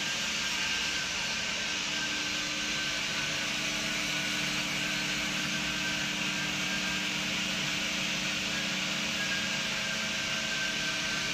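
XY-OQ-7000K double-deck automatic serviette folding machine running at a constant speed: a steady mechanical whirr and hiss with a few constant hum tones underneath, unchanging throughout.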